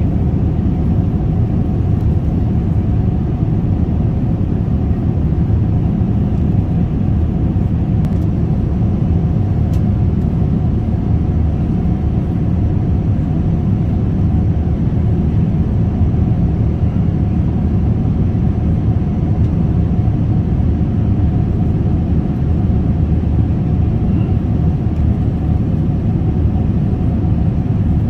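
Cabin noise of a Boeing 787-9 Dreamliner in cruise at about 38,000 ft: a steady, even low rumble of airflow and engines.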